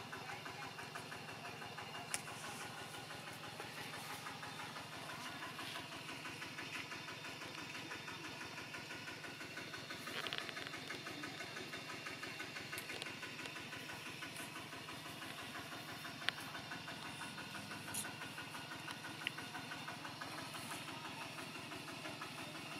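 An engine running steadily at idle, with a fine rapid pulse and a few faint clicks on top.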